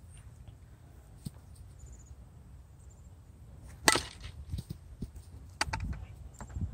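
Fastpitch softball bat striking a softball off a batting tee: one sharp crack about four seconds in, followed by a few fainter knocks. A low rumble of wind on the microphone runs underneath.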